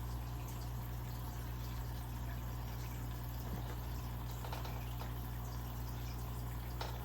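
Aquarium water bubbling and trickling steadily over a constant low hum, with a couple of faint ticks in the second half.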